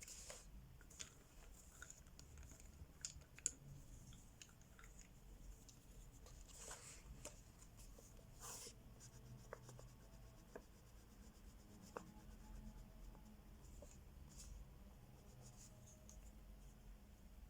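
Crayola wax crayon scratching across colouring-book paper in quiet, uneven strokes, with a few small clicks and taps in between.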